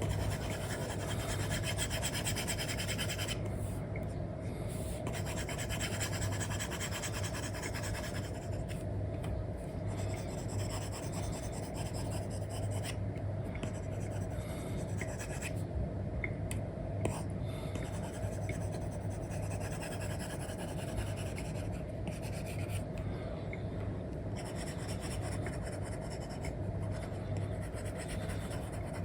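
Apple Pencil 2 with an Elecom nib scratching across a paper-like film on an iPad screen in back-and-forth coloring strokes, with brief pauses between runs of strokes, over a steady low hum.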